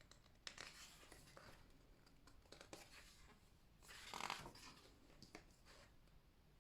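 Faint rustling and sliding of paper as the pages of a photobook are handled and turned, with the loudest rustle about four seconds in.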